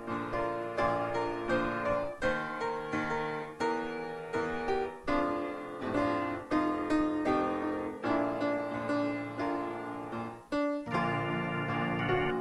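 Piano music, with a steady run of notes and chords.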